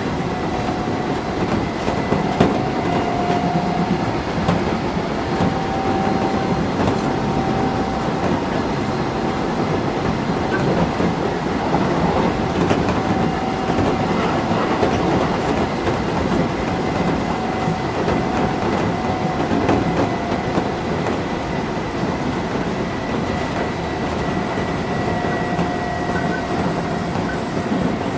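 Keisei 3400 series electric train running at speed, heard from inside a passenger car: a steady rumble of wheels on the rails with faint clicks over rail joints and a thin steady whine.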